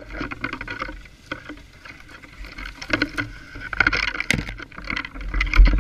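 A Honda CRF230 dirt bike's single-cylinder four-stroke engine runs at low revs, under a mass of irregular crackling and scraping as branches and leaves brush against the helmet and bike. A heavy low thump comes near the end.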